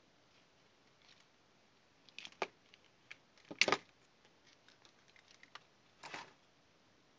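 Small scattered clicks and light rattles of hands handling thin wires and a plastic snap-off utility knife, the loudest a short clatter about three and a half seconds in. Near the end comes a brief scrape as the knife blade is worked against the wire to cut it.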